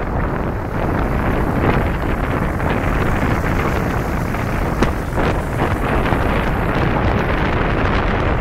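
Steady, loud wind buffeting the microphone of a camera mounted on the outside of a moving car, with the car's road noise underneath.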